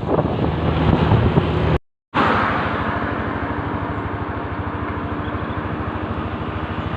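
Vehicle engine running steadily with road noise, a fast even pulsing under a steady hum. It cuts out to silence for a moment about two seconds in, then carries on at an even level.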